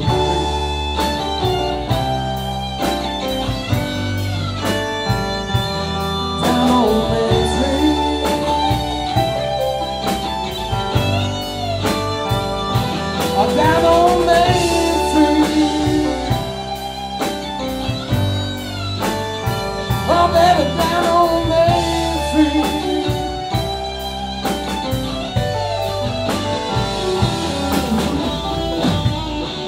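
Live blues band playing: electric guitar over bass, keyboard and a steady drum-kit beat.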